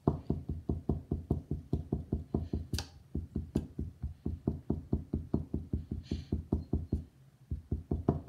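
Rapid, even, muffled knocking, about five knocks a second, that runs for about seven seconds, pauses briefly, then starts again near the end.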